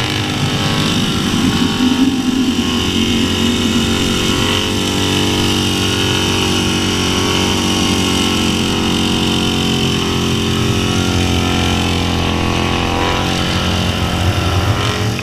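Bagger motorcycle engine running at fairly steady revs while the bike is held up in a wheelie, with wind buffeting the microphone.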